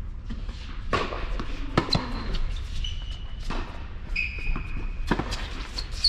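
Tennis rally on an indoor hard court: several sharp pops of the ball struck by rackets and bouncing on the court, echoing in the hall, with short squeaks of sneakers on the court surface.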